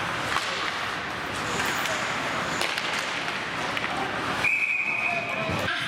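Ice hockey play with scattered sharp clacks of sticks and puck over rink noise. About four and a half seconds in, a referee's whistle blows one steady note for about a second, stopping play.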